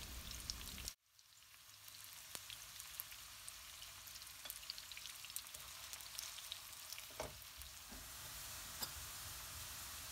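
Sliced onions and green chilies sizzling faintly in oil in a nonstick wok, a steady crackling fry with a few light clicks. The sound drops out briefly about a second in.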